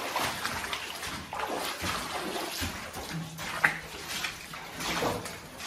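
Footsteps of several people splashing and sloshing through shallow water along a mine gangway floor, in an uneven run of steps.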